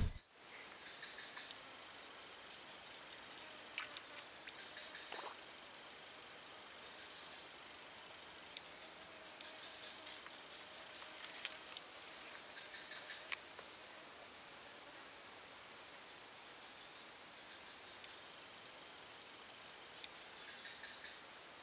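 Steady, high-pitched chorus of insects, with a few faint clicks.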